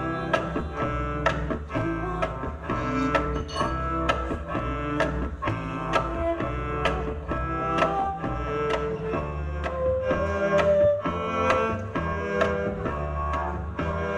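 Two acoustic double basses played live, with deep plucked bass notes and sharp percussive knocks on the strings and body in a steady beat of about two a second. A woman sings into a microphone over them, more strongly in the second half.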